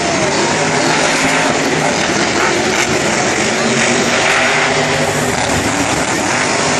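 Monster truck engines running loudly and steadily across the arena.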